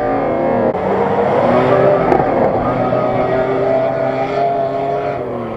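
Off-road SUV's engine revving hard under load as it churns through loose sand, fading as it pulls away near the end.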